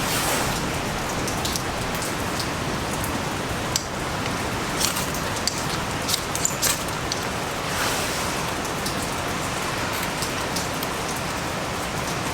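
Steady heavy rain, with scattered sharp clicks and ticks through it, a handful of them between about five and seven seconds in.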